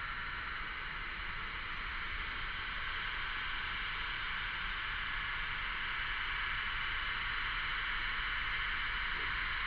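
Cicadas buzzing in a dense, unbroken chorus that swells slightly louder toward the end.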